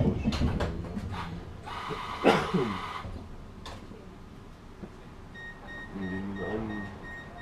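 Inside a stopped tram, its door-warning signal starts beeping about five and a half seconds in: a quick, even series of short high beeps, the sign that the doors are about to close. Before it, about two seconds in, comes one short loud noise with a falling tone.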